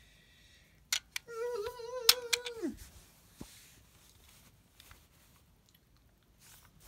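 A voice hums one wobbly, wavering note for about a second and a half, and the pitch drops away at the end. A few sharp clicks and taps come around it, most likely toys being handled.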